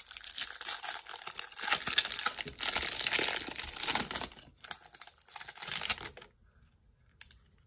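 Clear plastic wrapper of a trading card pack crinkling and tearing as it is pulled open by hand, a dense crackle of small clicks that thins out and stops about six seconds in.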